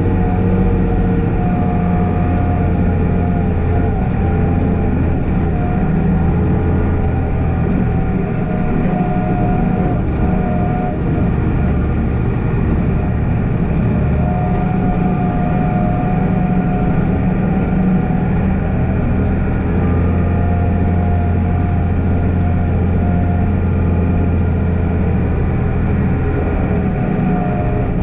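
Unimog U1400's diesel engine running steadily under load while it pushes a front-mounted snowplow through snow. A higher whine comes and goes over the engine note.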